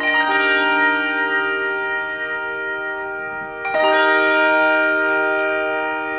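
Handbell choir ringing two chords, one struck at the start and the next about three and a half seconds in, each left to ring on and slowly fade.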